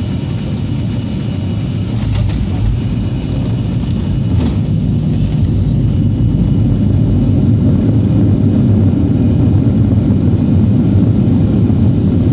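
Airliner engines running in flight: a steady, heavy low rumble with a faint hiss above it, growing slightly louder over the few seconds.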